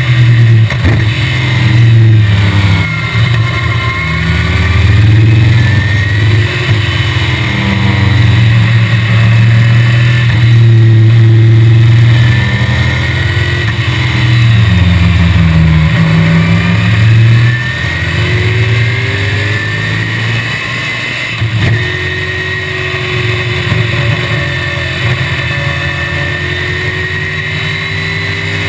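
1965 BTM Cheetah roadster's small-block Chevrolet V8 at racing speed, heard from the open cockpit. The note rises and drops again and again through the gears for the first half. From about two-thirds of the way in it is a little quieter and climbs slowly in pitch on a long pull.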